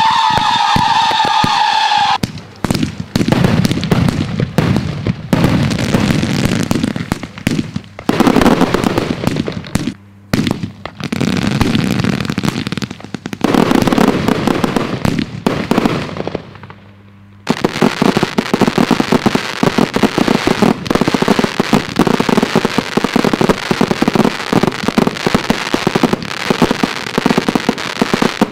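Daytime colored-smoke fireworks batteries firing in rapid succession: dense, continuous crackling of many shots. A steady whistling tone cuts off about two seconds in, and there is a brief lull just past the middle.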